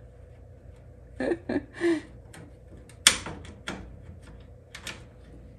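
Scattered light metallic clicks and taps as bolts are worked through a power brake booster's mounting bracket at the car's firewall, with one sharp click about three seconds in. A brief murmured voice comes a little after one second.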